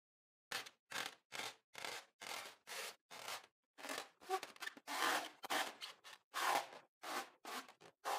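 Hands pressing and squishing a bead-studded glitter slime, short crackly squishes about two a second. Then, from about four seconds in, a balloon full of slime is squeezed in the hands, giving longer, louder squishes.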